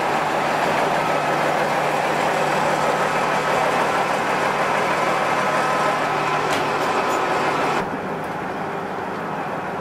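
KiHa 40 diesel railcar idling at a standstill: a steady engine rumble with a constant low hum. The sound drops suddenly and goes duller near the end.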